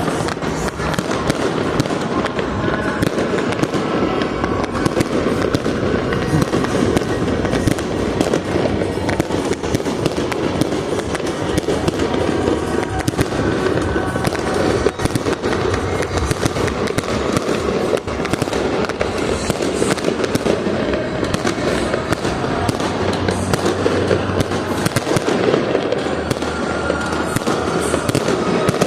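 Fireworks display going off in a continuous barrage of dense bangs and crackles, with no let-up.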